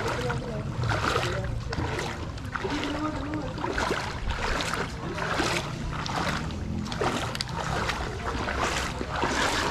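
Legs wading through knee-deep floodwater, a swish and splash of water with each stride, a little faster than one step a second.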